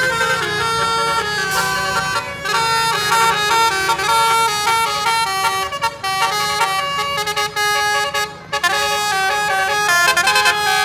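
Bus basuri (telolet) horn, a set of tuned air horns, playing a tune: several notes sound together and step quickly from pitch to pitch, with brief breaks about six and eight seconds in.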